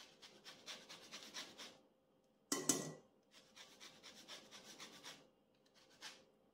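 Orange peel being zested on a fine rasp grater: quick runs of faint scratchy strokes. About two and a half seconds in there is one louder stroke that rings briefly. Near the end a single stroke follows on its own.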